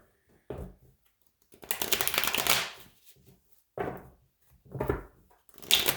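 Tarot deck being shuffled by hand: a dense rush of flicking cards lasting about a second starting near two seconds in, then several shorter bursts of cards sliding and slapping together.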